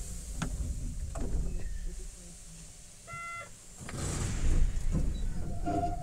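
Enoden electric train standing at a station, with a few sharp clicks, then a short chime tone about three seconds in. After the chime a low rumble and hiss rises as the train readies to pull away.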